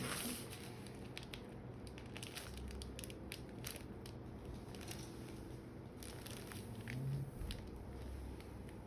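Faint, scattered cracks and clicks, irregular and short, from a chiropractic neck adjustment: the joints of the neck popping as they are manipulated.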